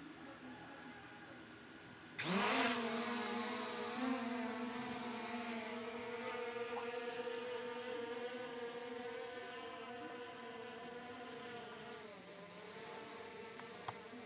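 JJRC F11S 4K Pro quadcopter's motors and propellers starting up about two seconds in with a quickly rising whine, then holding a steady buzz as the drone takes off and climbs, slowly growing fainter.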